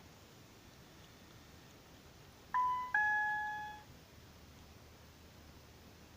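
A two-note electronic chime, 'ding-dong', high note then low note, the second fading out over about a second.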